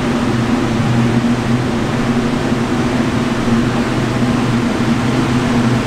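Steady mechanical hum over a rush of air, with an even low drone, from the running machinery of a dynamometer cell.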